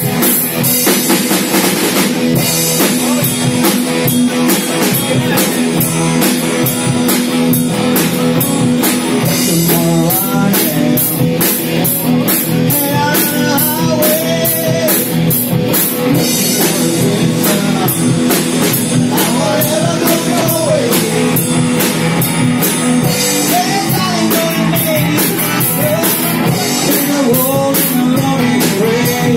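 Live rock band playing: drum kit, electric bass and electric guitars, with a voice singing the melody from about ten seconds in.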